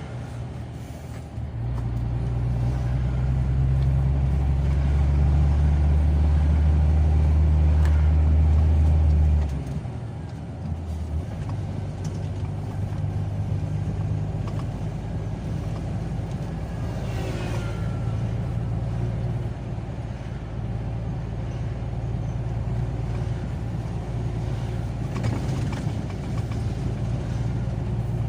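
A car driving on the road: a steady low rumble of engine and road noise. It is louder for about the first ten seconds, then drops abruptly to a lower, even level.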